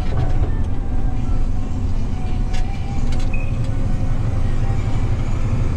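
Box truck driving, heard inside the cab: a steady low rumble of engine and road noise, with a few faint clicks about halfway through.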